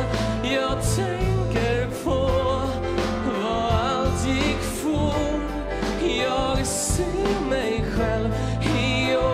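Male lead vocal singing a Swedish pop ballad live into a handheld microphone, with vibrato on the held notes, over instrumental backing with a steady bass line and light cymbal strokes.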